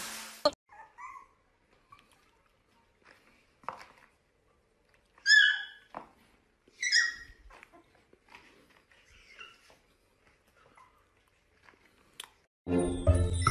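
A small puppy giving a few short, high-pitched yips, the two loudest about five and seven seconds in, among faint scuffing. Music with jingle bells starts near the end.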